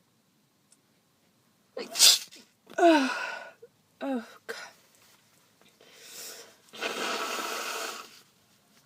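A person with a head cold sneezes sharply about two seconds in, followed by two short moans falling in pitch, then a longer rush of breath noise near the end.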